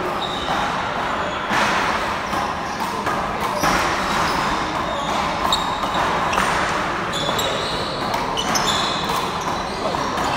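A rubber handball smacking against the wall and floor during a rally, about once a second, with the hits echoing through a large hall.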